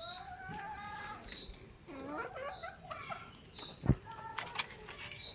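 A chicken in a pen calling and clucking: a drawn-out call first, then a run of shorter rising and falling calls. A faint high chirp repeats about once a second, and there is a dull knock about four seconds in.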